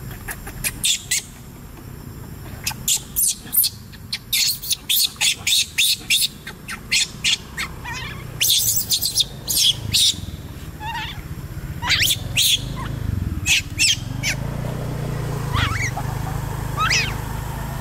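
Newborn macaque infant crying in short, high-pitched squeals, many in quick succession, thinning in the second half to a few longer cries that slide in pitch.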